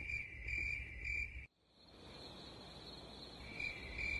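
High-pitched insect chirping over a low rumble; it cuts off abruptly about a second and a half in, and a steady high drone follows, with one more short chirp near the end.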